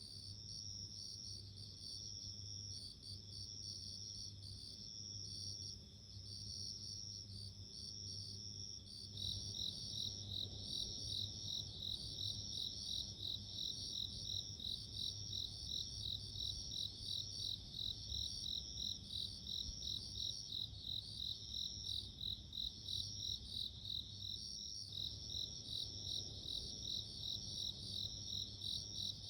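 Japanese bell crickets (suzumushi) singing, several overlapping in high ringing chirps. About nine seconds in, a louder one starts a quick, steadily repeating chirp.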